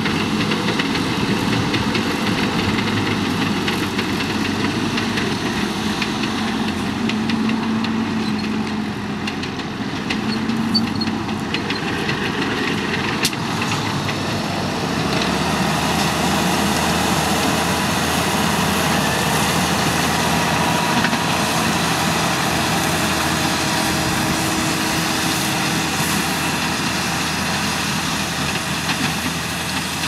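Deutz-Fahr Agrotron 180.7 tractor's six-cylinder diesel running steadily under load while it pulls an Amazone ADP 3000 Special power harrow and seed drill through the ground. The sound gets fuller in the low end about halfway through.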